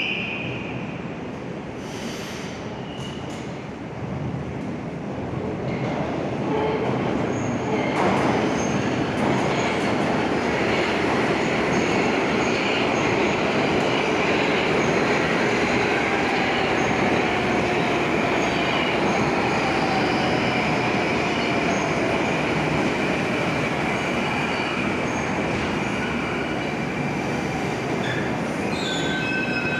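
Moscow Metro 81-760 'Oka' train running at the platform: dense running noise from wheels and motors, building from about four seconds in, with a faint motor whine falling in pitch midway.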